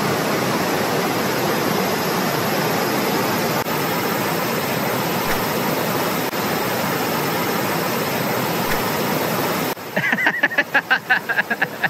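Shallow river rushing steadily over rocky riffles. About ten seconds in, a person bursts out laughing in quick pulses.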